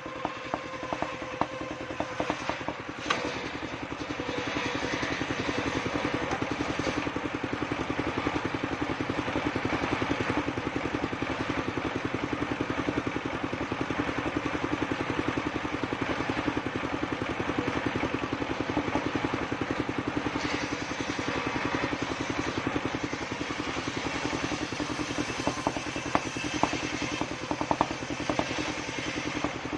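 Engine of a homemade circular-saw sawmill running steadily with an even firing beat, growing louder about four seconds in and holding there, with a few sharp clattering knocks near the start and again near the end.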